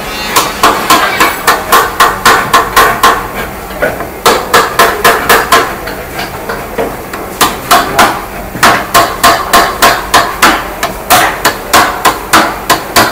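Hammer striking a clamped wooden chair frame over and over, in quick runs of about three blows a second broken by short pauses.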